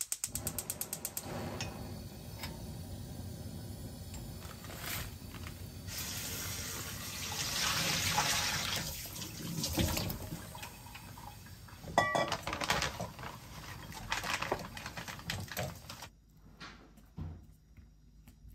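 Gas stove igniter clicking rapidly as the burner is lit, then a steady wash of liquid in a saucepan on the flame. About ten seconds in, tteokbokki rice cakes slide into the pot from a bowl, followed by a sharp clink of cookware.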